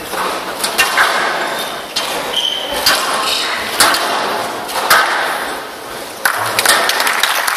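Squash rally on a glass court: the ball cracks sharply off rackets and walls about once a second, echoing in the hall. Near the end, crowd applause breaks out.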